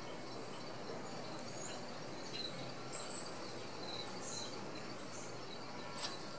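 Outdoor ambience: a steady background hiss with short, high bird chirps scattered through it, and a brief click near the end.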